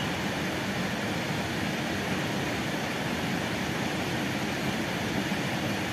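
Steady rushing of flowing, churning water, an even noise that neither rises nor falls.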